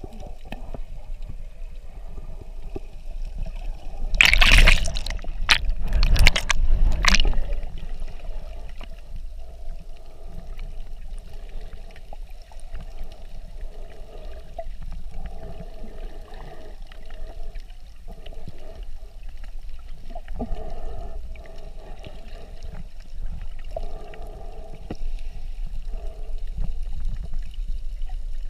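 Muffled underwater sound from a camera held just below the sea surface: a steady low rumble with gurgling. About four seconds in there is a louder stretch of splashing water noise lasting around three seconds.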